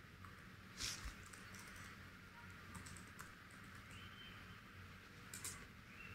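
Faint computer keyboard typing: a few scattered keystrokes, the loudest about a second in.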